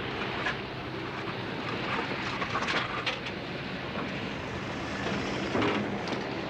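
A steady engine drone over a haze of noise, with a few faint clicks.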